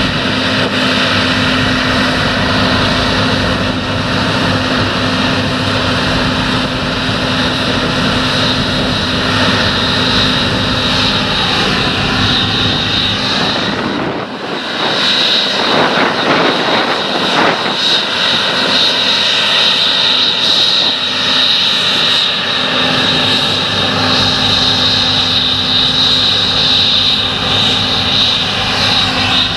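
John Deere S690i combine harvester running while cutting wheat: a steady diesel engine drone under a high machinery whine. About halfway through the sound dips briefly, and afterwards the low rumble is weaker while the whine stays.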